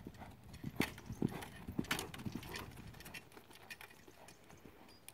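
A Lusitano horse's hoofbeats at the canter on a sand arena: a series of knocks, loudest in the first half and fading after.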